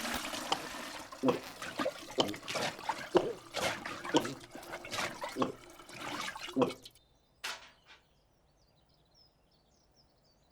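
Water splashing and sloshing in quick irregular bursts for about seven seconds, then it stops abruptly and it goes almost silent apart from a single click.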